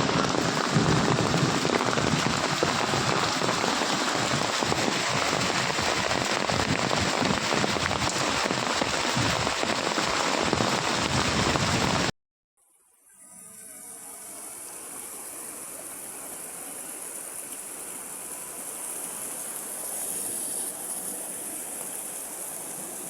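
Heavy rain falling in a dense, steady downpour. About twelve seconds in it cuts off suddenly, and after a moment of silence a quieter, steady rush of flowing water takes over.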